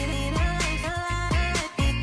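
Background pop music with deep bass and a steady beat.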